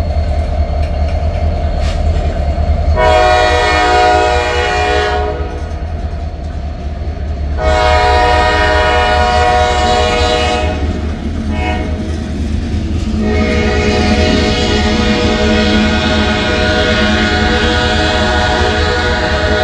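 Freight locomotive air horn blowing the grade-crossing pattern: long, long, short, then a final long blast held on, over the steady low rumble and wheel clatter of freight cars rolling past.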